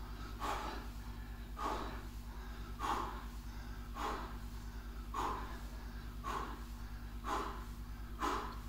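A man breathing out hard in a steady rhythm, one forceful breath about every second, in time with each rep of bodyweight squats. A faint steady low hum runs underneath.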